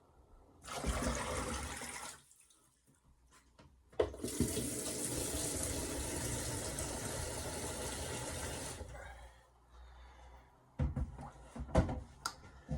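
Water running from a tap into a sink, once briefly and then for about five seconds, followed by a few clattering knocks near the end.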